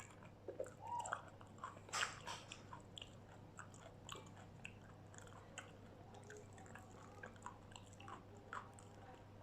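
Close-up chewing and biting of crispy batter-fried food, with scattered small crunches and a louder crunch about two seconds in.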